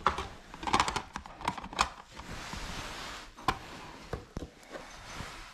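Clicks and knocks of a rubber stamp being handled in a clear plastic box on a table, with a soft rustle in the middle.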